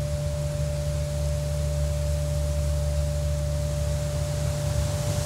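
Ambient soundtrack drone: a steady low hum with a single held tone above it and a soft even hiss, unchanging throughout.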